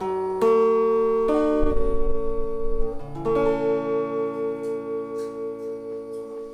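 Electric guitar playing slow, sustained chords as the ending of a song. The last chord, struck about three seconds in, rings on with an even wavering pulse about four times a second and slowly fades.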